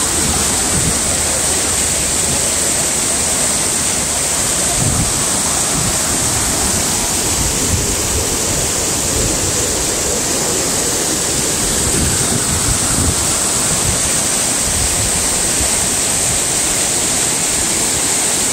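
River water rushing and rippling steadily: a constant hiss of moving water, with uneven low rumbles underneath.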